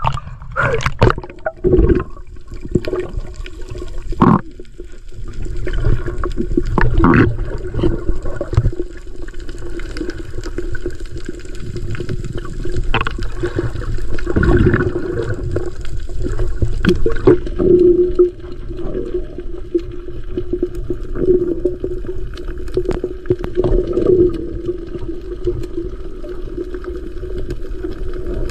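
Seawater sloshing and splashing against a camera at the surface, then muffled underwater water noise with a steady low hum for the rest.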